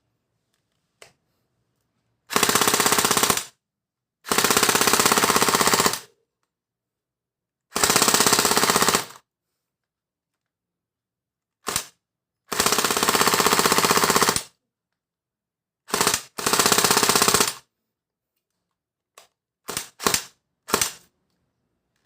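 Renxiang AK-102 gel blaster firing gel balls in rapid full-auto bursts: six bursts of one to two seconds each with pauses between, then a few short bursts and single shots near the end.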